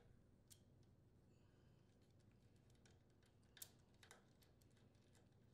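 Near silence with a few faint clicks of a hand screwdriver turning a small screw into the generator's alternator housing, the clearest one about three and a half seconds in.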